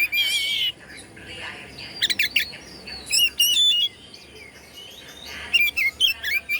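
Oriental magpie-robin (kacer) singing: four short bursts of varied, wavering whistles and rapid clicks, a second or so apart.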